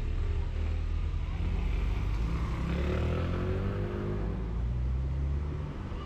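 Steady low rumble of a car's engine and road noise.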